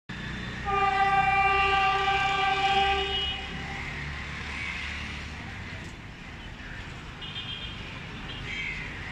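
A horn sounds one long steady note for about three seconds, over the steady noise of city street traffic. Fainter short high tones follow near the end.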